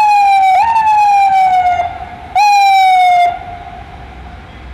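FDNY ambulance siren sounding in short bursts, each a tone that jumps up and then falls slowly over about a second. Three bursts, the last cutting off a little past three seconds in, leaving low street traffic rumble.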